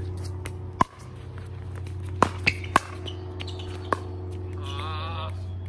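Pickleball rally: five sharp plastic pops of paddles hitting the hollow ball, three in quick succession about two seconds in, over a steady low hum. Near the end there is a short wavering call.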